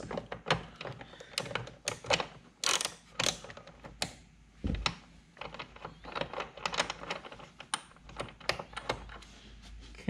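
Hand ratchet with a 19 mm socket clicking in irregular runs as it is swung back and forth to undo the lower seat belt anchor bolt, with one heavier knock near the middle.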